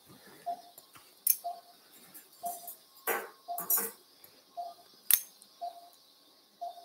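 Metal surgical instruments (needle holder and forceps) clicking and clinking during skin suturing. Under them, a short, even beep repeats about once a second, the pulse tone of an anaesthesia monitor.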